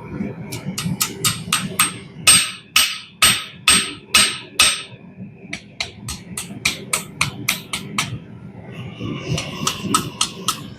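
Hand hammer striking a hot steel file on an anvil to flatten it: runs of sharp strikes, the loudest half-dozen in the middle ringing, then a quicker run of lighter blows. A steady low roar from the forge's heating torch runs underneath.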